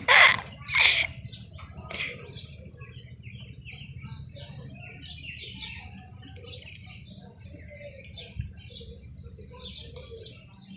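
Small birds chirping in many short high calls throughout. Three loud, harsh bursts come in the first two seconds.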